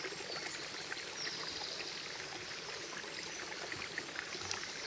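Steady rushing outdoor background noise, with a few faint high chirps.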